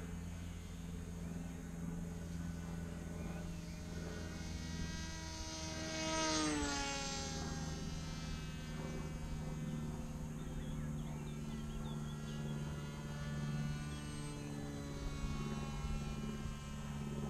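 3D-printed radio-controlled model airplane flying past overhead. Its motor and propeller whine peaks and drops in pitch as it passes close about six seconds in, then fades to a fainter drone. A steady low hum runs underneath.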